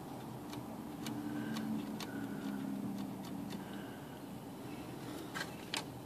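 Light metallic clicks from a Smith Corona typewriter's power spacer and escapement levers being moved by hand, a few scattered ticks with the two sharpest near the end, over a faint low hum.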